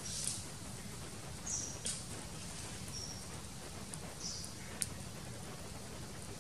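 Pig heart and pork kidneys grilling on stick skewers over charcoal embers: faint sizzling with a few sharp, scattered pops and crackles over steady low background noise.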